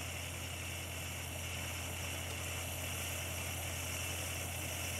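Instant Pot electric pressure cooker hissing steadily as steam escapes past the float valve while the pot builds pressure, before the valve rises and seals.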